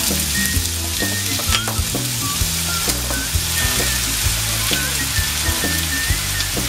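Chopped ridge gourd sizzling as it is tipped into hot mustard oil with browned onions in a frying pan, a steady hiss with scattered light knocks of pieces and spatula landing in the pan.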